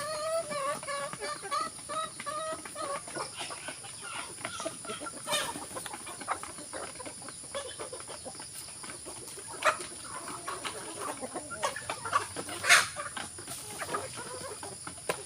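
Chickens clucking, with a run of wavering calls in the first few seconds and scattered short clicks and knocks, one louder knock near the end. A faint steady high-pitched whine sits underneath.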